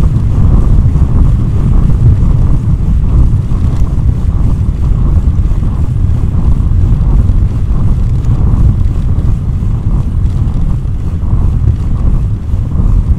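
Wind buffeting the microphone on a moving bicycle: a loud, steady low rumble.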